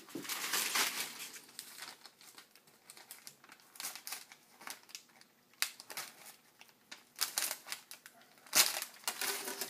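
Crinkling and rustling of a kite's sail and tails being handled, in irregular bursts, the loudest near the end.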